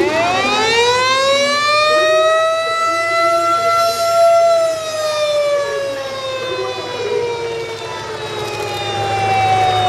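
Fire truck siren giving one long wail: it winds up over about two seconds, holds steady, then slowly winds down through the second half.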